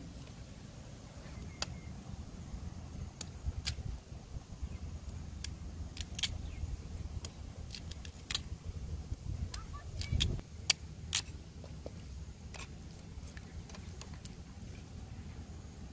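A cleaver cutting chunks off a peeled sweet potato held in the hand, the pieces dropping into a pan of water: sharp clicks and knocks at irregular intervals over a low steady rumble.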